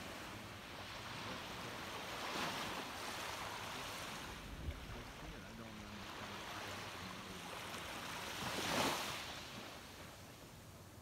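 Small waves lapping and washing up a sand-and-pebble shore, swelling twice, the louder wash about three-quarters of the way through. A brief low thump comes about halfway.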